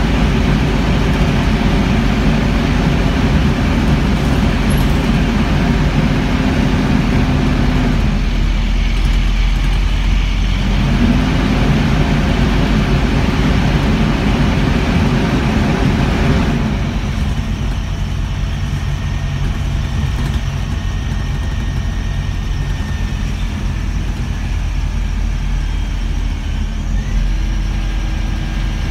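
Scania N230UB bus heard from inside its saloon: the diesel engine and running noise, the engine note dropping about eight seconds in and rising again a few seconds later. About halfway through the higher noise falls away abruptly, leaving a lower steady hum.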